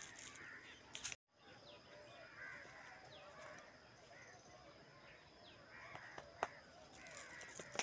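Faint evening chorus of many small birds chirping and calling among the trees in short, scattered calls. The sound cuts out completely for a moment about a second in, and a single sharp click comes a little past the middle.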